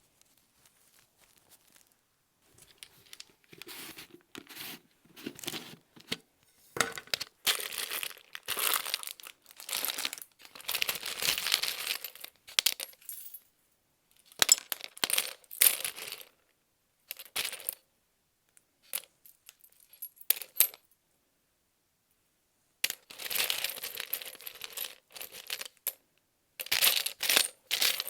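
Paper and craft materials being handled on an art journal page: intermittent rustling and scraping in bursts of a second or two. It is quiet for the first couple of seconds and pauses for several seconds after the middle.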